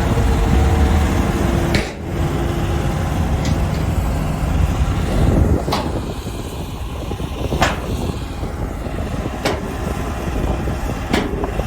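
Caterpillar D5G XL crawler dozer's diesel engine running steadily with a heavy low rumble while it pushes dirt. Six sharp metallic clanks come at irregular intervals of about one to two seconds.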